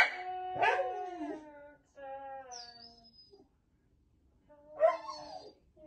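A dog barks sharply once, then whines in long drawn-out calls that slide down in pitch, in three separate bouts.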